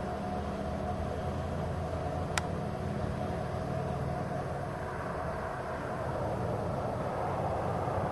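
Steady low rumble and hiss of outdoor background noise, with one short sharp click about two and a half seconds in.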